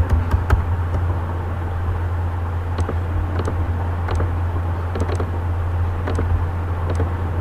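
Steady low electrical hum, with about ten scattered sharp clicks from a computer keyboard and mouse as figures are typed and a button is clicked.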